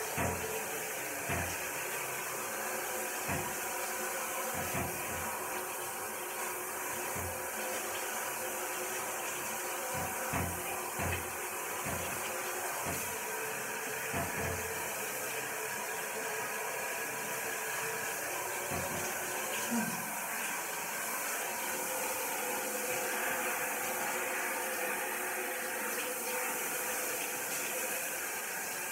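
Handheld shower head spraying water steadily while a dog is rinsed in a shower stall. Occasional low thumps come in the first half.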